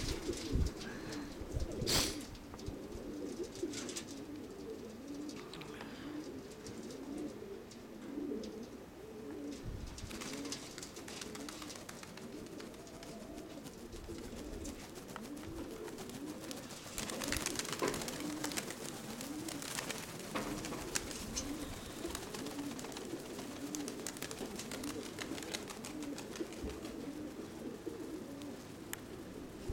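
Domestic pigeons cooing over and over, several birds' low coos overlapping in a steady run, with a few brief bursts of rustling noise, the loudest about two seconds in.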